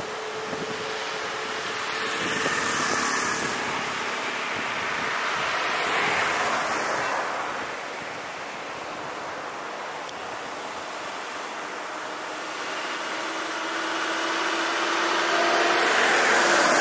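Road traffic passing on an open road: tyre and engine noise from cars and vans swells and fades as each vehicle goes by, twice early on. It builds to its loudest near the end as a truck approaches.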